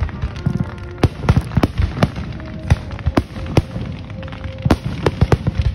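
Fireworks display: aerial shells bursting in a rapid, uneven string of over a dozen sharp bangs and pops, with a crackling din between them.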